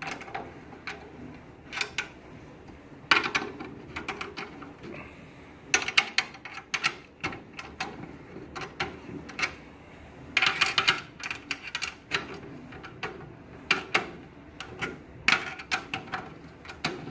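Metal clicks and rattles from a snare drum's tension rods and hoop as the rods of a slackening drum head are loosened one after another with a drum key. The clicks come in irregular clusters every few seconds.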